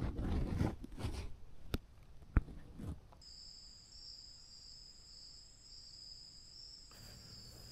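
Footsteps crunching through dry pine straw and brush, with two sharp snaps. After about three seconds this gives way to a steady, high insect trill, like crickets, that carries on at a low level.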